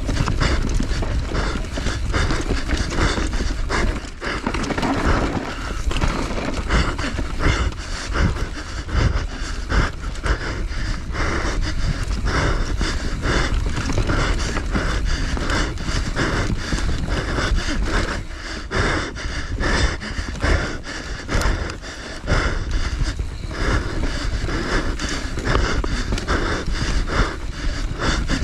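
Enduro rider panting hard close to the microphone while racing, mixed with many irregular knocks and rattles.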